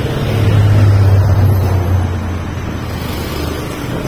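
City bus passing close by, its engine a low rumble that swells about half a second in and fades after about two seconds, over steady road-traffic noise and some wind on the microphone.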